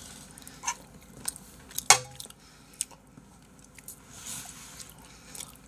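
Metal spoon clinking and scraping against a wok while scooping fried rice: a few sharp clinks, the loudest about two seconds in with a short metallic ring.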